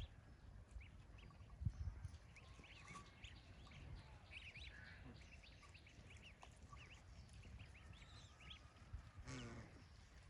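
Ducklings peeping: many short, high chirps scattered throughout. A low thump comes near two seconds in, and one longer, lower call about nine seconds in.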